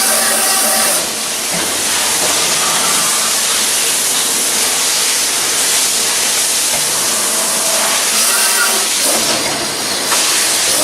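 Loud, steady hiss of a high-pressure jet, taking over about a second in and easing off near the end, with a steady machine whine just before and after it.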